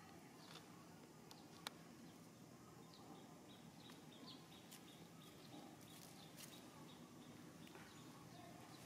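Near silence: faint outdoor background with scattered small clicks and crackles, one sharper click about a second and a half in.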